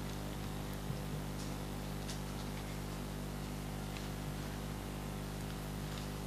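Steady electrical hum and hiss of a quiet hall, with a few faint scattered ticks and rustles.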